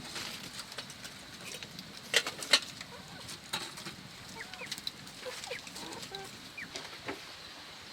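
Short bird chirps and clucks, with a few sharp knocks, the two loudest a little over two seconds in.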